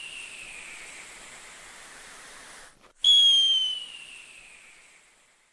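Whistling fireworks: a shrill whistle dies away into a steady hiss that cuts off, then about three seconds in a second whistle starts, sliding slowly down in pitch and fading out.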